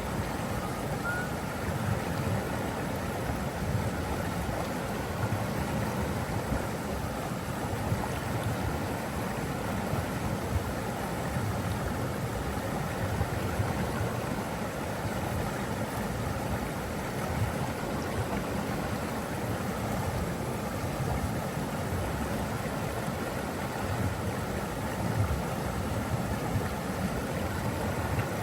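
Water from a waterfall rushing in one steady, even noise that never lets up.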